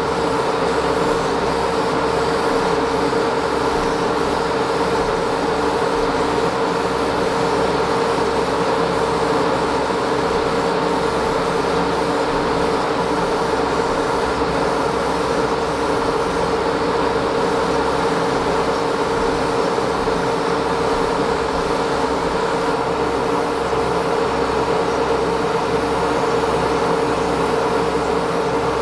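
A hobby spray booth's extractor fan running: a steady electric hum with rushing air, unchanged throughout, while the booth is in use for airbrushing.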